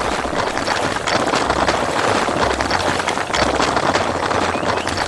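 Machinery sound effect: dense clattering and rattling over a low rumble that comes and goes.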